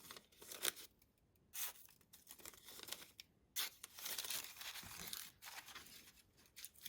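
Irregular soft rustling and crinkling, with a few sharp clicks spread through it.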